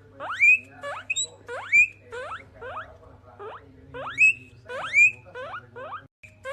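Guinea pigs wheeking: a run of loud, sharply rising squeals repeated one or two times a second, with some shorter chirps between them.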